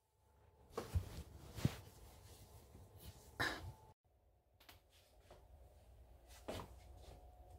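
A person's soft, breathy sigh close to the microphone, among quiet handling noises of soft clothes and a few light knocks.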